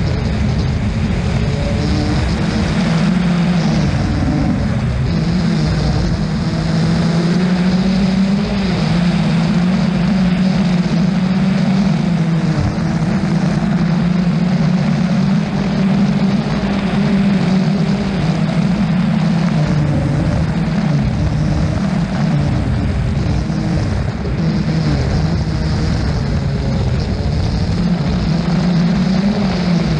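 Rally car engine running at fairly steady revs, with a brief dip in pitch about four seconds in, over a steady rushing noise.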